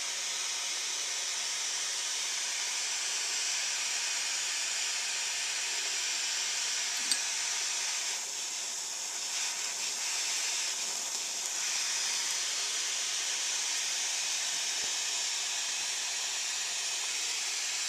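Handheld propane torch on a propane cylinder burning with a steady hiss, its flame heating a lug and wire for soldering. A small tick about seven seconds in.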